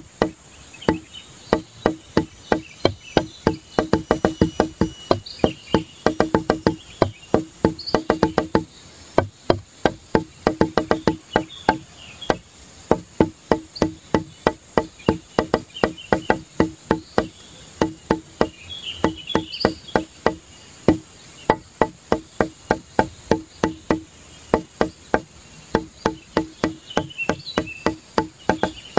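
Background music with a fast, steady clicking beat, like a wood block, repeating the same note several times a second.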